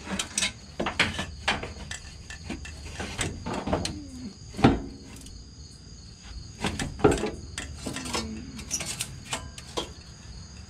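Irregular sharp metal knocks, clunks and scrapes as an exhaust manifold with its catalytic converter pipe is worked loose and lowered out from under the car. The loudest knock comes about halfway through.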